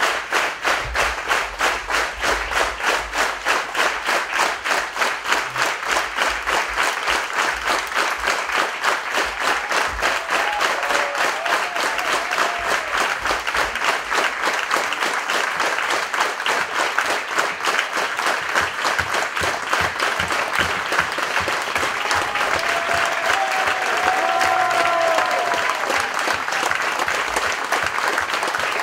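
Concert audience applauding, at first clapping together in a steady rhythm of about two to three claps a second, then breaking into ordinary continuous applause about halfway through.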